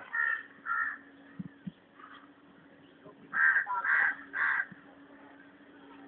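Crows cawing: two harsh calls near the start, then three more in quick succession a little after the middle, over a faint steady low hum.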